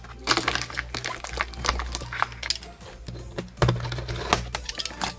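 Box cutter slicing through packing tape and corrugated cardboard to open a shipping box, a run of short irregular scrapes and crackles, over background music.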